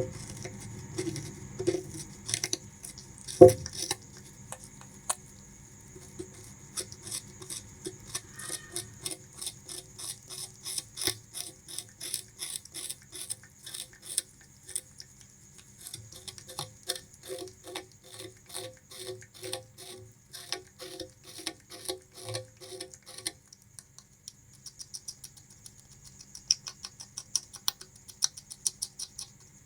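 Bamboo rat chewing sugarcane: rapid crunching bites at about three a second, with one sharp knock about three and a half seconds in. The crunching stops briefly about two-thirds of the way through, then resumes more softly.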